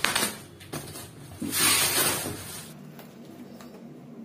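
Clear plastic wrap rustling and crinkling as it is pulled off a cardboard box, with cardboard being handled; the loudest rustle lasts about a second, around the middle.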